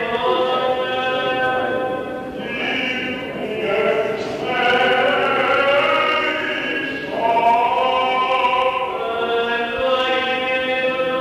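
Byzantine liturgical chant: voices singing long, drawn-out melodic lines over a held drone note.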